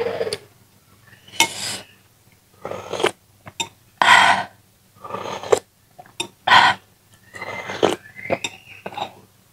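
Soup slurped off a metal spoon in a series of short sips, picked up close by a clip-on microphone, with sharp clinks of the spoon against a glass bowl in between.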